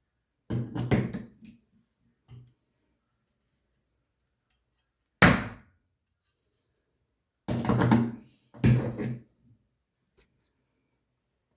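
Dull knocks and thunks of hard objects being handled: a short cluster near the start, a single sharp knock about halfway, and another cluster toward the end.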